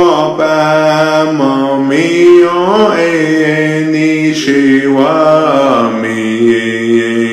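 Unaccompanied chanted prayer song for rain, sung in Cree and Jemez. A low note is held steady beneath a melody of long held notes that slide up and down between pitches.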